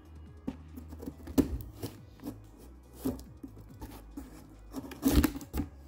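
Cardboard shipping box being handled and opened: scattered short scrapes, rustles and knocks, the loudest cluster about five seconds in, over quiet background music.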